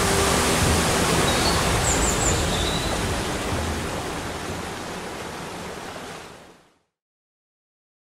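Waterfall pouring into a rock pool: a steady hiss of falling water that fades down and cuts to silence about six and a half seconds in. A few short high chirps sound briefly about two seconds in.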